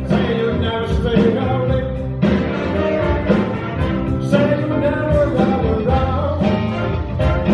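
Blues big band playing live: horn section, electric guitars, drums and keyboard, with a man singing over the band.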